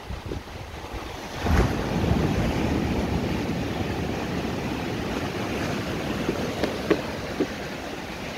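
Small sea waves breaking and washing up a sandy beach at the water's edge: a steady surf hiss that swells about a second and a half in, with a few short clicks in the last couple of seconds.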